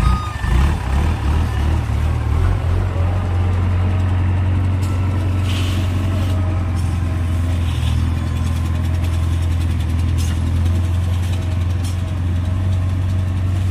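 JCB 3DX backhoe loader's diesel engine running at low revs, a deep steady drone that is uneven for the first few seconds and then settles.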